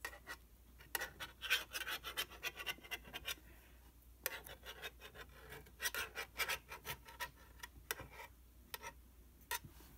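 Butter knife scraping and rubbing in short, irregular strokes as it is run around the edge of a set gelatin gelli plate in its mold, breaking the suction seal to release it.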